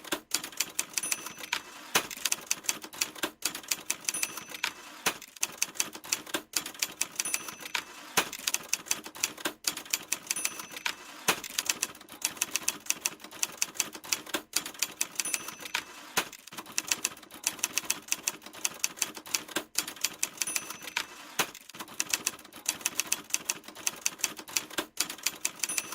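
Manual typewriter typing: a fast, continuous clatter of key strikes, with a short high tone recurring about every three seconds.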